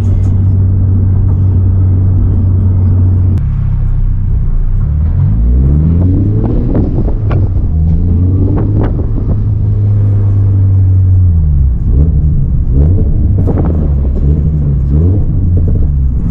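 2022 Subaru BRZ's 2.4-litre flat-four with aftermarket headers. It runs steadily at first, then the revs climb and drop several times as the car accelerates through the gears, with a steady stretch in between.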